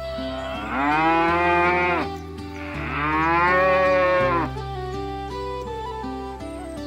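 A cow mooing twice, two long calls that each rise in pitch and then fall away, over background music with held notes.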